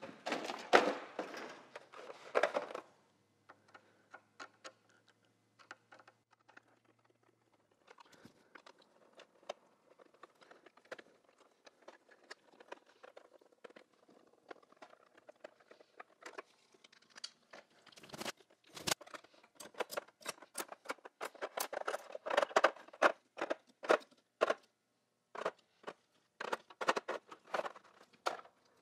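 Hands handling a set of chrome ratcheting combination wrenches in a black blow-molded plastic tray. Faint scattered clicks of a screwdriver freeing the screwed-in anti-theft strap come first, then, about halfway through, a run of sharp metal-on-metal clinks and plastic clacks as the wrenches are lifted and set back into the tray.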